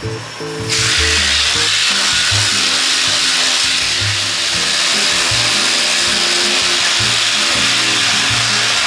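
Handheld power sander with a coarse disc grinding down a fiberglass body panel, running steadily after starting up again under a second in, over background music with a repeating bass line.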